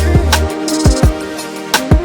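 Background music with a steady beat: drum hits over a deep bass note and sustained tones.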